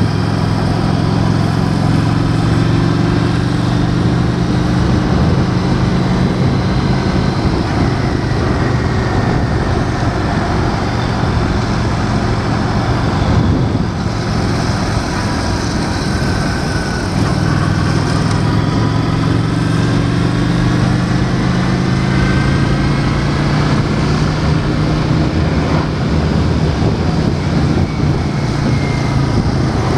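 Honda Shadow 750's V-twin engine running at cruising speed, with wind and road noise on the bike-mounted camera. About halfway through, the engine note fades for a few seconds, then picks up again.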